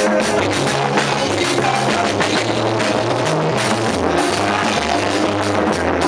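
Loud music with drums keeping a steady beat and a bass line that moves from note to note.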